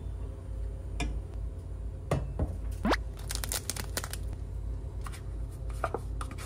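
Plastic soup-stock packet crinkling as it is handled, in a cluster of sharp crackles about three seconds in, with a few clicks and squeaks from cooking utensils before it.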